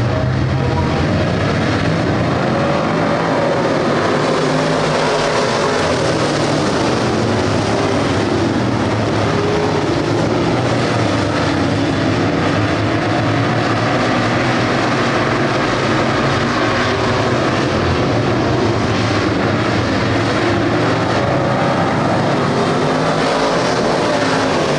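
A field of street stock race cars running together around a dirt oval. Many engines overlap in a loud, steady drone, their notes wavering up and down as the cars go around.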